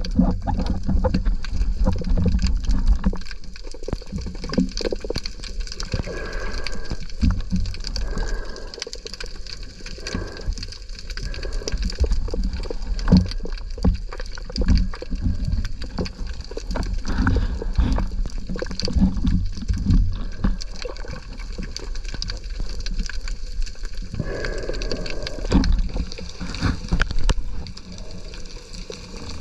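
Sea water sloshing and gurgling against a camera in or at the water's surface, with irregular low knocks and clicks throughout.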